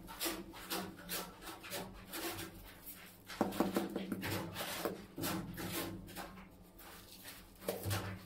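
Repeated short scraping and rubbing strokes of tiles and a hand tool worked against wet tile adhesive on a wall. The strokes are loudest about three and a half to five seconds in.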